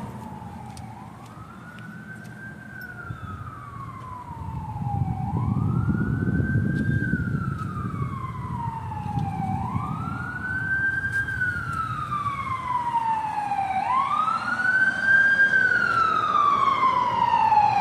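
Emergency vehicle siren on a wail cycle: each sweep climbs quickly and then slides slowly back down, about every four seconds, growing louder as it approaches, with a low rumble of traffic underneath.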